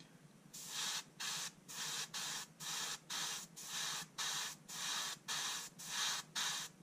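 Iwata gravity-feed airbrush spraying thinned acrylic surface primer in short bursts of hissing air, about two a second, starting about half a second in. These are quick, light passes that build the paint up in fine layers.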